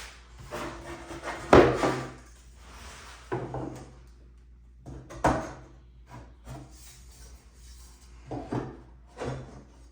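Wooden drawer parts and clamps being handled during glue-up: a series of separate knocks and scrapes of wood, the loudest about a second and a half in, with a low steady hum underneath.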